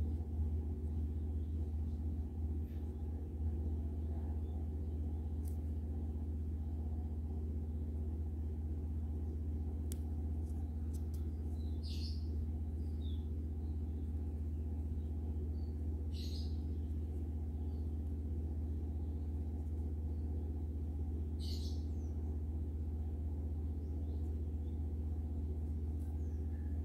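Steady low background hum, with a short high chirp four times, about every four to five seconds from the middle on.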